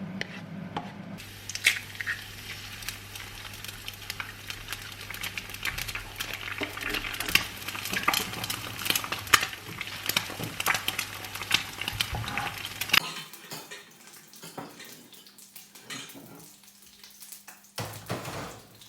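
Food sizzling and crackling in a frying pan, with a utensil clinking against the pan. The sizzle starts about a second in and stops about two-thirds of the way through, leaving only a few scattered clicks.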